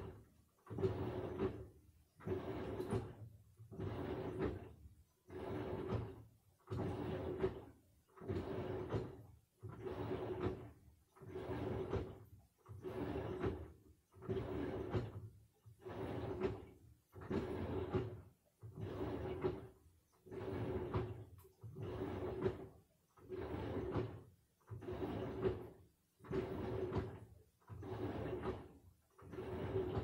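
Samsung washing machine agitating a wash load: the motor drives the drum back and forth about once a second, each stroke a hum with a steady whine over water sloshing, then a short pause before the next.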